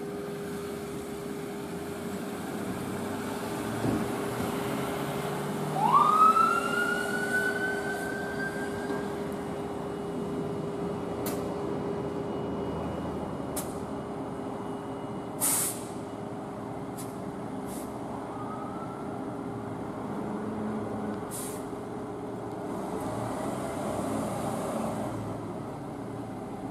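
Emergency vehicles running as they leave the fire station. About six seconds in, a siren briefly winds up in a quick rising pitch and fades; a shorter siren rise comes later. About halfway through there is a short loud air-brake hiss among several sharp clicks.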